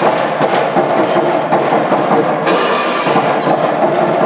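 Handball match play in a sports hall: a dense, steady din with many short, sharp knocks and thuds.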